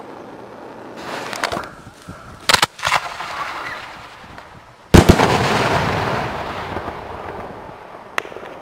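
Consumer aerial firework cake: a brief fuse hiss, then a quick cluster of sharp launch pops as the shells leave the tubes, and about two seconds later a loud boom as they burst overhead, with a long rolling echo that fades over a few seconds. A small crack sounds near the end.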